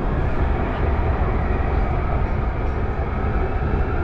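Bergen Light Rail tram running, heard from inside the passenger car: a steady rumble of wheels on rail, strongest in the deep low end.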